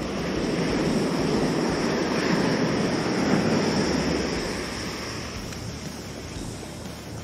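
Ocean surf: a wave rushes in, swelling about a second in, peaking midway and fading away.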